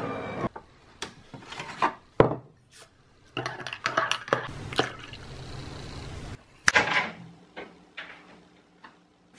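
Metal spoon stirring coffee in a ceramic mug, with scattered sharp clinks and knocks of the spoon against the mug.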